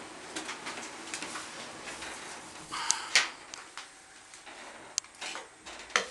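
Paper and desk handling: sheets of paper rustling, with a few sharp clicks and knocks. The loudest rustle comes about halfway through.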